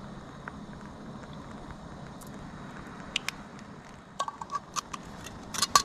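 Small hard objects being handled: a run of sharp clicks and light ringing clinks, loudest in a cluster near the end, over a steady low background rush.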